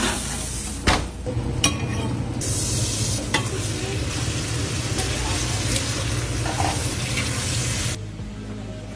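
Chicken frying in a cast-iron skillet, a steady sizzle, with a few sharp clunks in the first few seconds. The sizzle drops away abruptly about eight seconds in.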